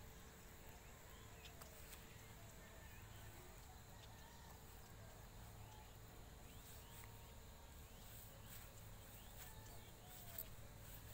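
Near silence: faint background noise with a steady low hum and scattered faint short chirps.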